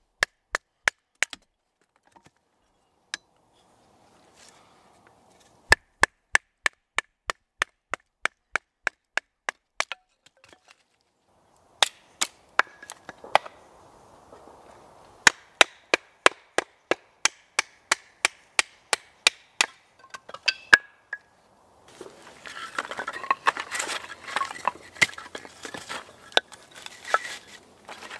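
A knife being knocked down through a small block of wood on a chopping stump to split kindling: runs of sharp, evenly spaced wooden knocks, about three a second, with short pauses between runs. Near the end the knocks give way to a denser rustling and clatter of split sticks on leaf litter.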